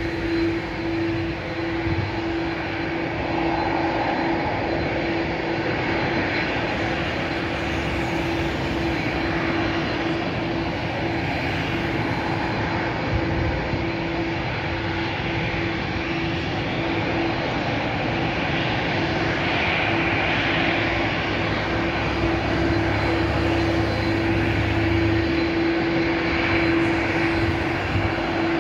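Airbus A320 jet engines running at idle with a steady whine, as the airliner holds at the runway end before its takeoff roll.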